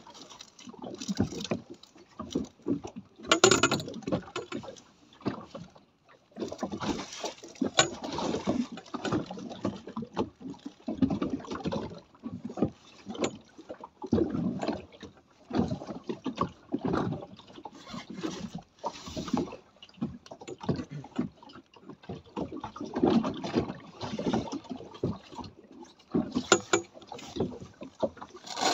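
Choppy sea water slapping and sloshing against the hull of a small boat at anchor, in irregular surges every second or so, with a few sharper knocks.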